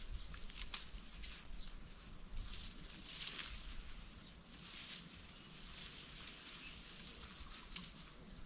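Faint, irregular rustling and crackling of dry grass, with a low wind rumble on the microphone.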